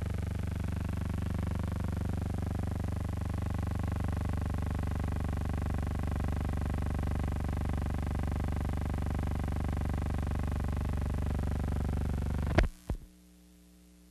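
A steady low throbbing hum with many even overtones, unchanging in pitch, broken about twelve and a half seconds in by two sharp clicks, after which only a faint hum remains.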